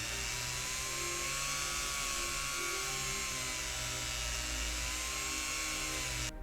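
A small high-speed electric motor whining steadily, its pitch wavering slightly, then cutting off suddenly near the end.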